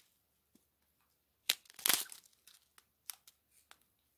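Small plastic zip-lock bags of diamond painting drills being handled, the bag plastic crinkling in short bursts. The loudest crinkles come about one and a half to two seconds in, with a few lighter clicks after.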